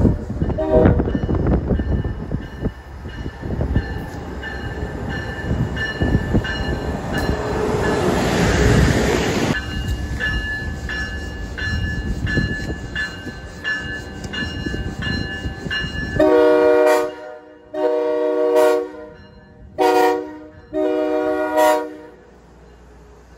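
Amtrak Acela Express electric trainset arriving alongside the platform: running noise with a steady whine, swelling to a loud rush about nine seconds in. Then the power car sounds its horn in four blasts, the third shorter than the others, as a hornshow.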